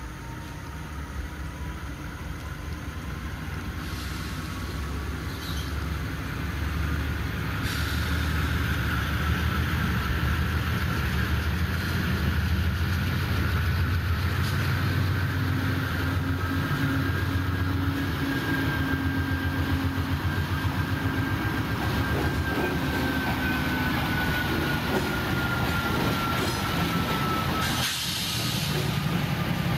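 CSX diesel freight locomotives approaching and passing, their engine drone building over the first several seconds and then staying loud. Over it a thin high whine rises slowly in pitch and then falls away.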